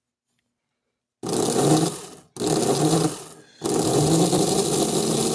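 Postwar Lionel F3 motor trucks running free on the bench, their open-frame motors and gears whirring loudly as power comes on about a second in, cuts out twice briefly, then stays on. One truck still runs slower than the other, which the owner puts down to grimy brushes that don't reach the commutator.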